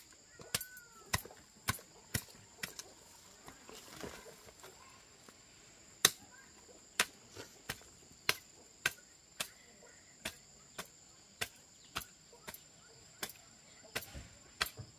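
Rhythmic chopping, sharp strokes about two a second, with a lull of only small taps for a few seconds before it resumes. Insects chirr steadily throughout.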